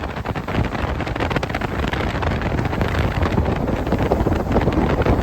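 Wind buffeting the microphone: a loud, steady rushing noise with a gusting low rumble.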